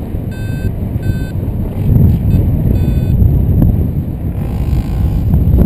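Paraglider variometer giving three short, high beeps in the first three seconds, its climb tone as the glider enters a thermal. Heavy wind buffeting the microphone underneath grows louder about two seconds in.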